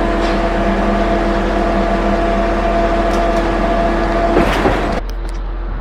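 Concrete pump truck's engine running with a steady droning hum. A short clatter comes about four and a half seconds in, and just after it the sound drops suddenly to a quieter, duller drone.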